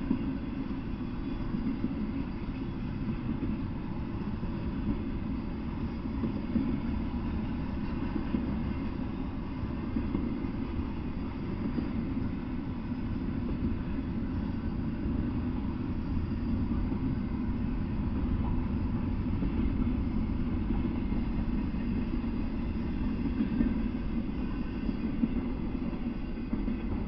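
Double-stack intermodal freight train rolling past: a steady low rumble of steel wheels on rail, easing off near the end as the last car clears.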